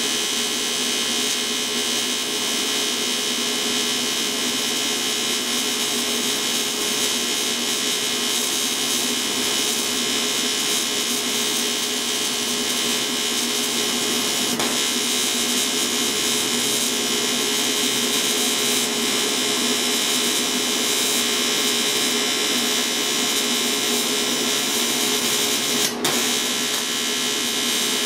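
AC TIG welding arc from an AHP AlphaTIG 200X on aluminum: a steady, loud electrical buzz held through a long bead, with one short break about two seconds before the end. The tungsten holds up without being eaten.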